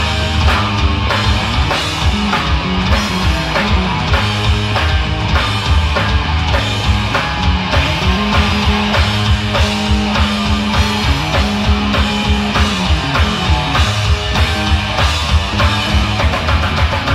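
Live hard rock band playing loudly: distorted electric guitars and bass over a drum kit keeping a steady, driving beat.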